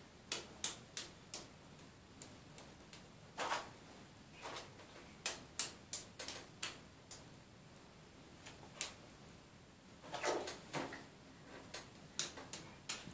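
A toddler clapping his wet, soapy hands together in a bubble bath: a string of sharp, irregular claps, some in quick runs of three or four, with a few longer, softer swishes of bath water between them.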